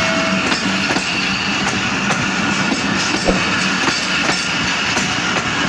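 Pakistan Railways passenger coaches of a departing train rolling past, their wheels clattering on the rails over a steady rumble.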